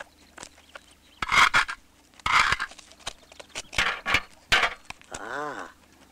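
Cartoon character panting in several short, irregular huffs, then a brief voiced sound that rises and falls in pitch about five seconds in.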